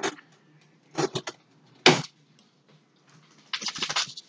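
Hands handling a cup while ingredients are put into a drink: a knock, then three quick clicks about a second in, another knock near two seconds, and a rapid run of clicks near the end.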